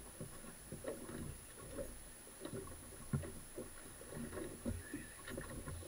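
Small boat drifting with its outboard off: water slapping at the hull, with irregular low thumps and knocks on deck.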